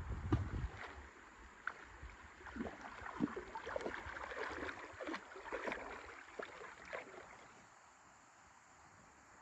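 A child wading through shallow river water: an irregular run of sloshing, splashing steps that dies away about seven seconds in. A low rumble on the microphone opens it.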